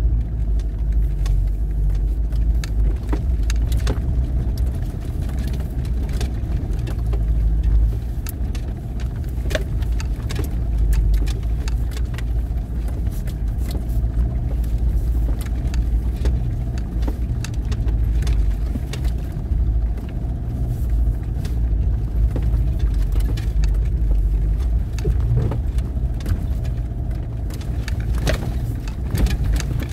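Off-road vehicle crawling over a rocky dirt trail: a steady low engine rumble with frequent clicks and rattles.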